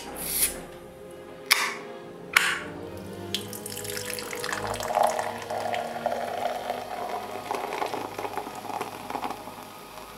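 A can of Coca-Cola Zero Sugar cracked open with sharp hissing snaps, then the cola poured in a steady stream into a glass mug, splashing and fizzing as the foam rises.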